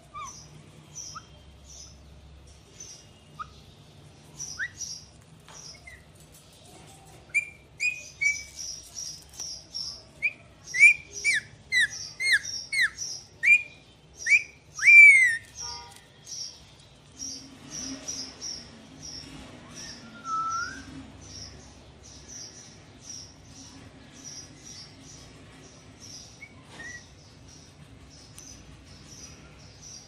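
Alexandrine parakeet whistling: a run of short, loud sliding whistles in the middle, the loudest about halfway through, over a steady series of short high chirps that keeps going throughout.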